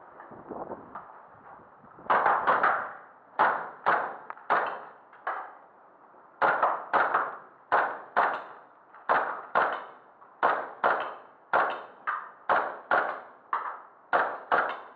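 Airsoft gun firing a steady string of single shots, about two a second, starting about two seconds in. Each shot is a sharp crack with a short echo off bare concrete walls.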